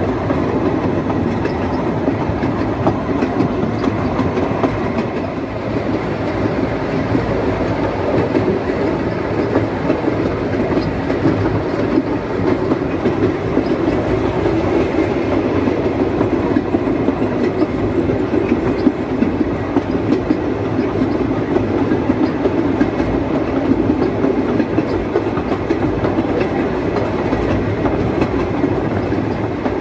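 Narrow-gauge Quarry Hunslet steam locomotive running at speed, heard from just behind its tender: a loud, steady, rapid clatter of engine and wheels on the rails.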